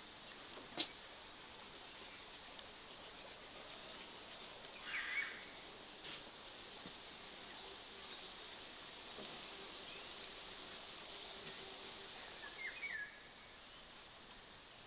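Outdoor rural ambience: a bird gives the same short call twice, about five seconds in and again near the end, over a steady insect hiss. A single sharp click sounds about a second in.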